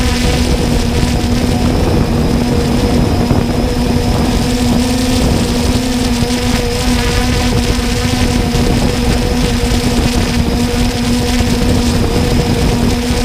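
Camera drone's motors and propellers whining steadily at one constant pitch while it hovers, over a continuous rushing noise.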